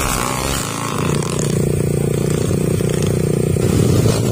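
Trail motorcycle engine running steadily, a little louder from about a second in.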